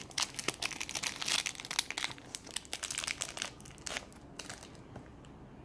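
A small crinkly LOL Surprise packet being crumpled and pulled open by hand, with dense crackling for about three and a half seconds and then a few last crackles.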